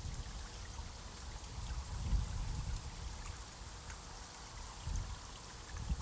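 Running water trickling steadily, like a small stream, over a constant high hiss, with soft low rumbles about two seconds in and again near five seconds.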